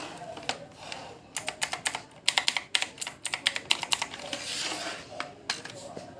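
Clicky blue-switch keys of a Redgear Shadow Amulet mechanical keyboard being typed on, sharp clicks in quick runs with short pauses and single presses between.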